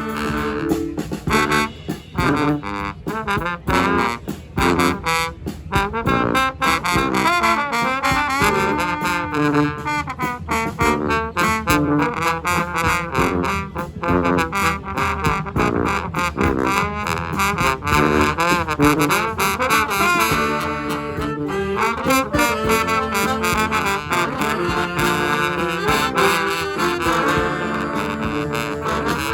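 Street brass band playing a lively tune, horn lines over a steady beat.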